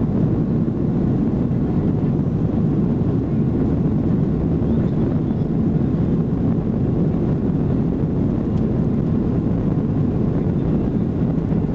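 Steady cabin noise inside a Boeing 737-800 airliner, with the CFM56-7B jet engines and airflow making an even, loud, low rush that neither rises nor falls.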